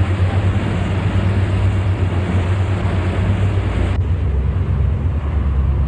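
Steady drone of a fast missile boat's engines, with wind and water noise over it; the sound shifts abruptly about four seconds in, as at a film cut.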